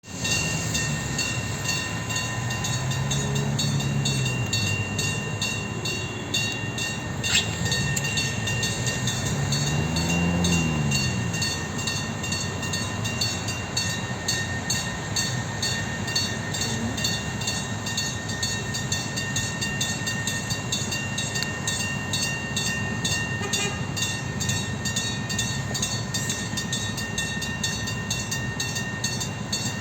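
MT 15409 train running with a steady hum, a constant high whine and regular clicking. Twice, in the first third, a low pitched sound rises and falls over a second or two.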